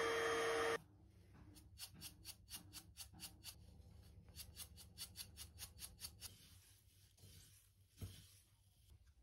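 A small electric appliance motor runs with a steady hum and cuts off abruptly under a second in. Then loose foxtail millet grains swish rhythmically in a ceramic plate as it is shaken, several quick strokes a second for about five seconds, to settle the grain and separate off the chaff. A single thump follows near the end.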